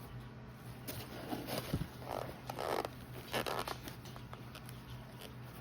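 Short rustling and scraping bursts as hatching eggs are handled and pressed into an egg carton, over a faint steady low hum.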